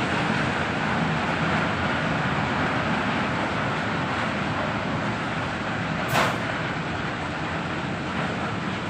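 Steady industrial machinery noise, with a brief sharp hiss about six seconds in.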